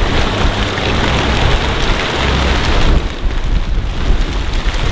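Strong wind buffeting the microphone in gusts, with black plastic silage sheeting rustling and flapping. The noise eases briefly about three seconds in.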